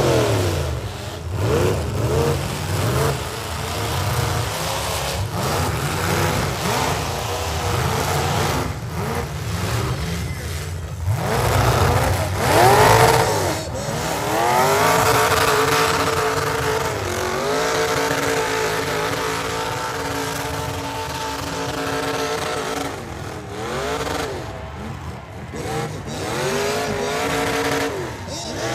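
Several V8 demolition derby cars running hard, their engines revving up and down as they ram and push one another. Near the middle one engine is held at high revs for several seconds.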